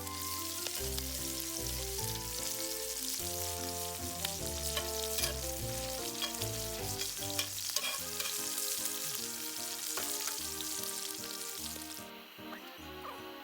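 Food sizzling as it fries in a pan, under background music with a steady melody. The sizzle stops near the end while the music carries on.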